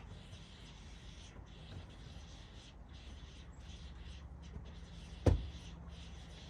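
A single sharp knock about five seconds in, over a low steady hum.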